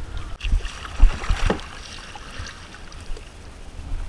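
Kayak paddling at sea: paddle blades dipping and splashing, water washing against the hull, with wind rumbling on the microphone. A few sharper splashes and knocks come in the first couple of seconds.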